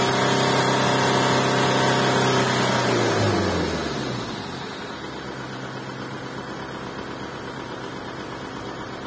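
2001 Kia Carnival's 2.9-litre turbo diesel engine held at about 4,000 rpm, then the revs fall away about three seconds in and it settles to a quieter, steady idle.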